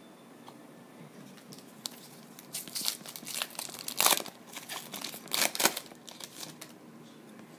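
A baseball card pack's wrapper being torn open and crinkled in the hands, in a run of crackling rustles, loudest about halfway through.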